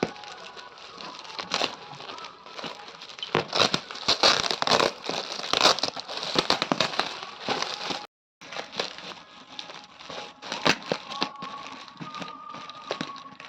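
Plastic packaging crinkling and crackling as a ring light is unboxed by hand, with irregular rustles and clicks that are densest in the middle. The sound drops out completely for a moment about eight seconds in.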